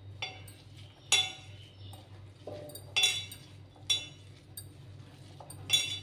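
Bangles clinking against each other and the rim of a stainless steel bowl as a hand mixes a thick beetroot and flour dough. There are about six short ringing clinks, loudest about a second in and at three seconds, over a steady low hum.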